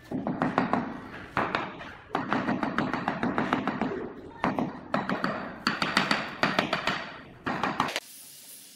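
A mallet tapping rapidly on a large ceramic floor tile to bed it down into the mortar beneath. The taps come in several quick runs separated by short pauses and stop near the end.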